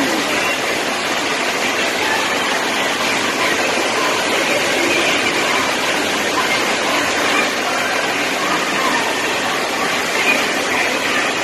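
Steady loud rush of water through rapids.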